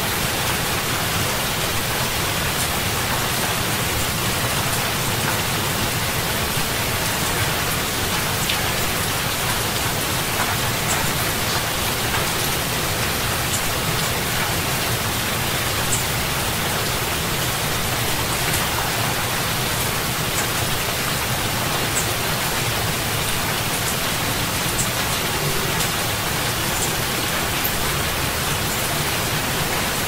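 Heavy summer rain falling, a steady dense hiss with scattered sharper drop hits.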